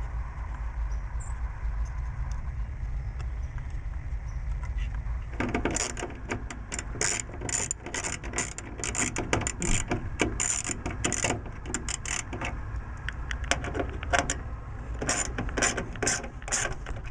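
Quick, irregular clicking and rattling of hand tools and small metal hardware while a car speaker is fitted and fastened in place, starting a few seconds in, over a steady low rumble.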